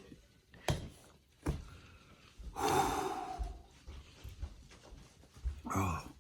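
A man gasping and blowing out breath hard against the burn of hot chili oil, with a short voiced breath near the end. Two short knocks come before it in the first second and a half.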